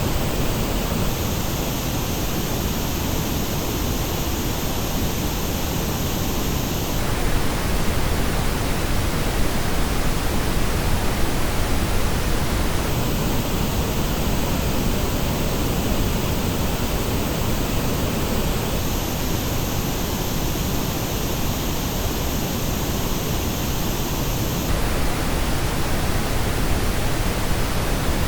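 Steady pink noise test signal, a full even hiss. Its tone changes three times, switching between a flat version and one with dips in the upper mids and high treble, as when the noise is heard through one headphone's frequency response and then another.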